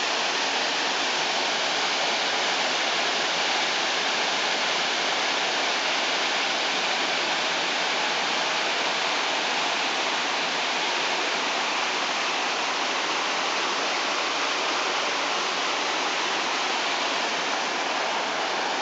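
Creek water rushing over a small cascade between boulders: a steady, even rush that does not change.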